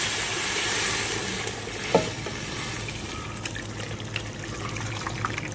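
Braising broth pouring from a wok through a wire-mesh strainer into a pressure cooker: a steady splashing pour that thins to a trickle over the last few seconds, with one light knock about two seconds in.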